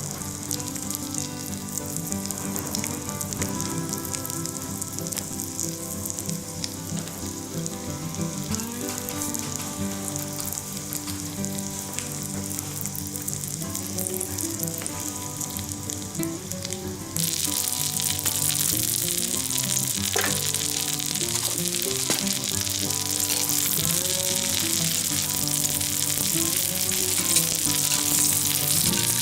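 Food frying in a skillet, a steady sizzle that suddenly turns much louder about two-thirds of the way through, like something freshly laid into the hot fat, over background music.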